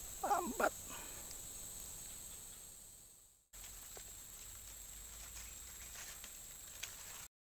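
Quiet outdoor swamp ambience under a steady high-pitched insect drone, with a brief voice-like sound just under a second in and a few faint clicks. The sound fades away to silence about three and a half seconds in, then comes straight back.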